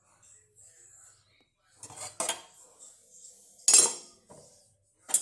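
Dishes and cutlery clattering as they are handled at a dishwasher: a few sharp clinks and knocks, one about two seconds in and a louder one near four seconds, with another starting at the very end.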